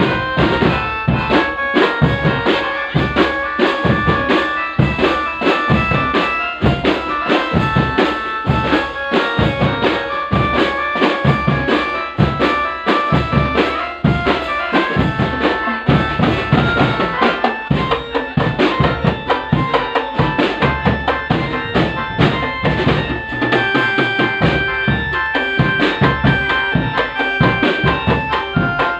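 Drum-band music accompanying a can macanan kadduk procession: a fast, steady beat of bass drum and snare, with a held melody played over it.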